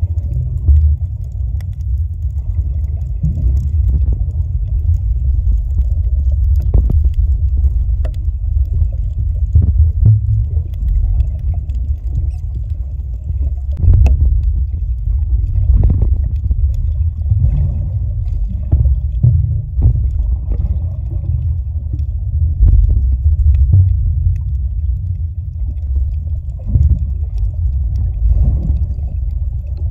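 Muffled underwater rumble of moving water against the submerged recorder, steady and low, with scattered short knocks and clicks.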